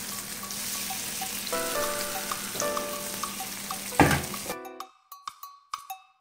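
Plantain slices sizzling as they fry in a hot stainless steel pan, with light background music over them. About four seconds in, a short loud burst comes as the sizzling cuts off, and only the music continues.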